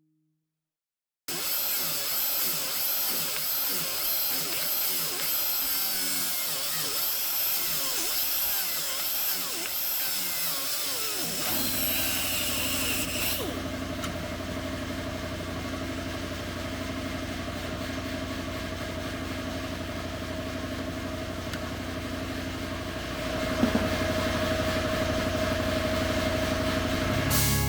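A power tool running, its sound changing about twelve seconds in to a steadier drone with a held whine.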